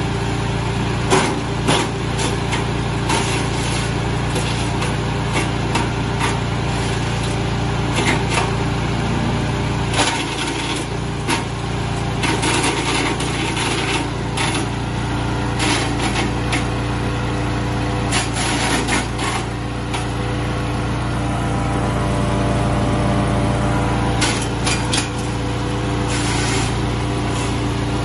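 TK100WC chipper/shredder running steadily, with irregular cracks and knocks as material is broken up inside it, coming in thicker spells now and then.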